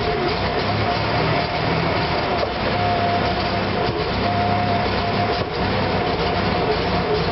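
Car engine idling roughly, its low running note uneven and unsteady, with a steady thin whine above it.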